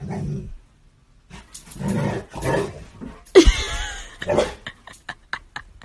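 A dog growling and barking in alarm at a hair tie held out toward it, with its loudest cry about three and a half seconds in, then a few short sharp taps near the end.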